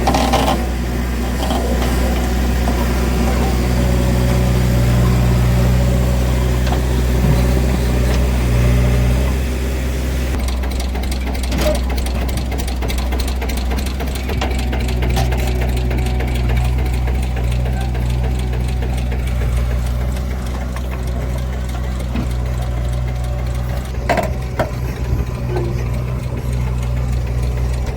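Heavy diesel engine of a tractor or backhoe-type machine running steadily with a constant low drone, its note easing slightly in the middle before settling back.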